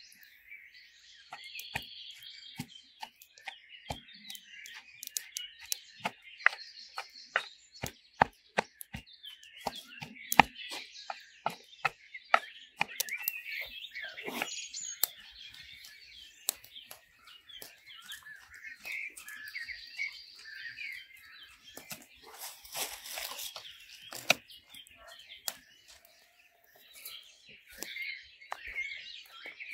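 Small birds chirping and singing throughout, with many sharp crackles and clicks from dried salt cod (klippfisk) being crumbled and shredded by hand in a wooden bowl, and a louder rustle a little past the middle.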